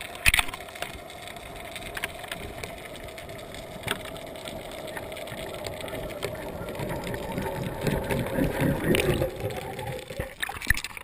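Underwater sound heard through a GoPro Hero 2's waterproof housing: a steady hum that drifts slightly lower, with scattered sharp clicks and knocks. The noise grows louder and rougher toward the end, then changes abruptly about ten and a half seconds in.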